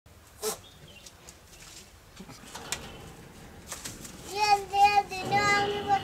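A goat kid bleating: a high, steady-pitched cry given three times in quick succession from about four seconds in, the last one held longest. A sharp knock comes about half a second in.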